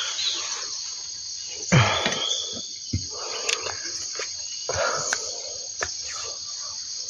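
Steady high-pitched drone of an insect chorus, crickets or cicadas, with a few brief louder sounds, the loudest about two seconds in.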